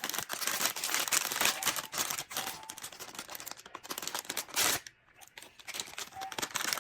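Blind-box packaging being unwrapped by hand: dense crinkling and crackling, with a loud rip about four and a half seconds in, then quieter rustling.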